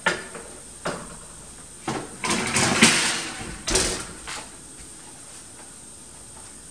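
A metal muffin tin knocking onto the gas stove's top grate, then the oven door swung up and pushed shut, with the loudest bang about three seconds in and another knock just after.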